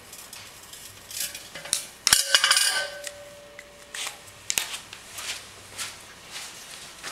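Light metallic handling noises on a steel workbench: a few short scratchy marker strokes on the aluminium tube, then a sharp clink about two seconds in that sets the 5-inch aluminium tube ringing with a clear tone for nearly two seconds, followed by a few light clicks.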